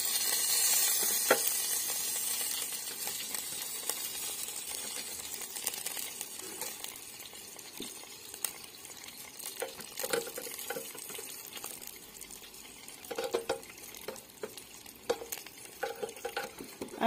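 Hot meatballs sizzling in a pulled-out air fryer basket, the sizzle dying down gradually, while tongs turn them over with scattered clicks and scrapes against the wire mesh basket.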